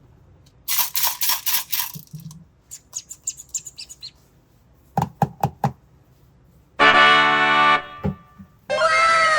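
A string of cartoon sound effects: a rattling swish, high twinkling chimes, a few quick boings, a harsh buzzer blast, then a cascade of falling whistles near the end.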